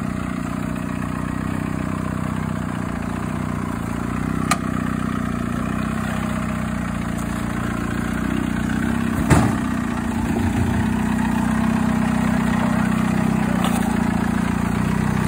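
Volkswagen TDI diesel engine in a flat-fender Willys Jeep running steadily at low revs while the Jeep crawls over rocks, with a single sharp knock about nine seconds in.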